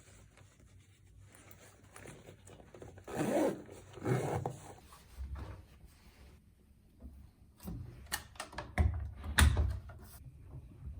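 Make-up bag and cosmetics being handled: two short rustling, rubbing passages a few seconds in, then a run of sharp clicks and knocks in the second half, like cases and caps being opened and set down.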